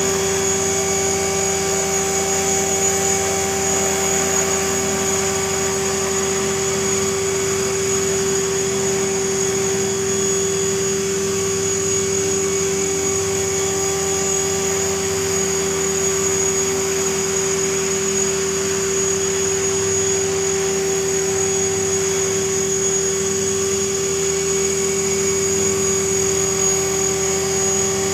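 Align T-REX 500 electric RC helicopter hovering: a steady whine from its motor and drivetrain over the buzz of the spinning rotor blades, holding an even pitch and level throughout.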